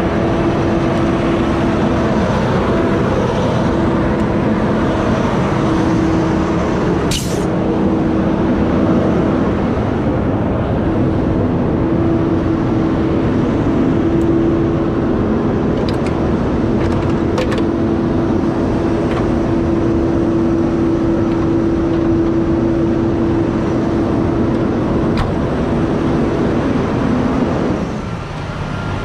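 Heavy truck's diesel engine idling steadily with a constant hum, a short sharp hiss about seven seconds in and a couple of faint ticks later; the engine note drops away near the end.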